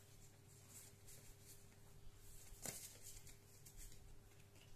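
Near silence: faint rustling of Pokémon trading cards being handled, with one soft tap a little past halfway, over a low steady hum.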